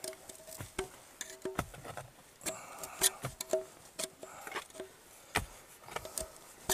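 Knife blade prying and scraping at the lid of a metal WW2 canister tube: irregular sharp clicks and scrapes, some with a brief metallic ring.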